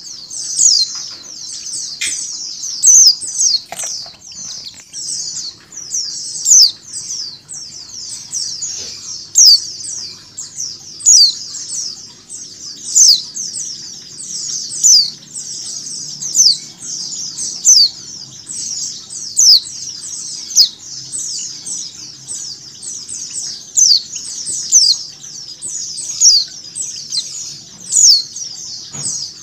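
A flock of white-eyes (pleci) chirping together in a dense, unbroken chorus of short, high calls, with a louder sharp call standing out every second or two.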